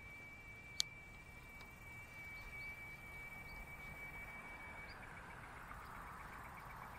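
A thin, steady, high insect trill that breaks into rapid, even pulses about five seconds in, with one sharp click about a second in. A soft whirr, from the spinning reel being wound in, rises through the second half.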